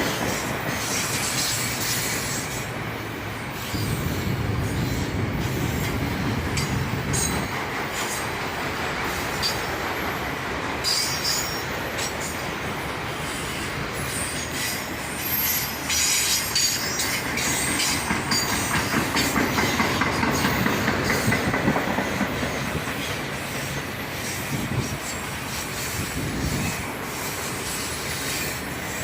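Autorack freight cars rolling past, their steel wheels rumbling and clacking over the rails with intermittent high-pitched wheel squeal.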